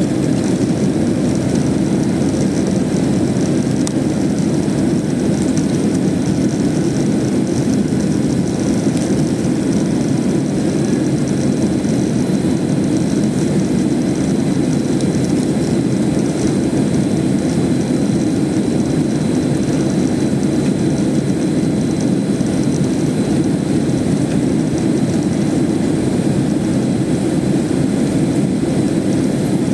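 Steady jet engine and airflow noise heard inside an airliner's cabin as it climbs out after takeoff: a constant low rumble with a fainter hiss above it.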